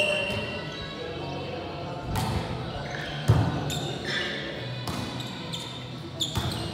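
Volleyball being struck a few times during a rally in a large, echoing gym, with the loudest hit about halfway through. Players call out between the hits.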